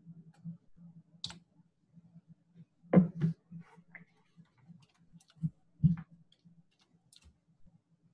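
Computer mouse clicking: a handful of separate sharp clicks, the loudest about three seconds in and just before six seconds in, over a faint low hum.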